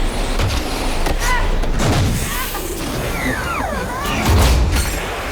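Film sound-effects mix of a spaceship decompression emergency: a steady roar of rushing air with deep booms about half a second in, two seconds in and just past four seconds, and short gliding pitched sounds in between.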